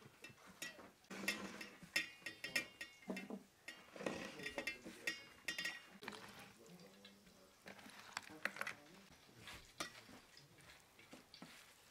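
Hands handling raw bonito pieces, dipping them in egg and pressing them into corn flour, with light clinks and knocks against a metal bowl and a plastic colander.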